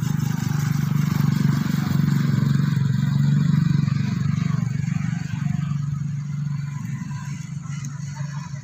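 Motorcycle engine passing on the road, loudest a few seconds in, then slowly fading.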